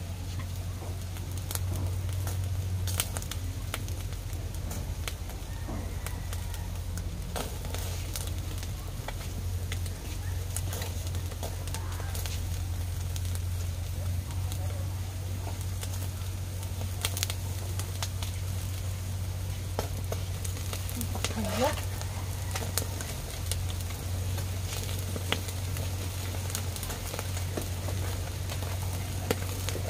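Wood fire in a clay stove crackling and popping under whole catfish sizzling on a wire grill, with many scattered sharp pops over a steady low hum.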